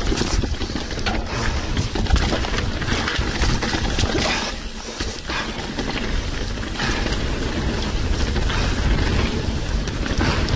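Mountain bike riding down a rough trail: tyres rumbling over the ground and the bike rattling with irregular knocks, with wind noise on the microphone.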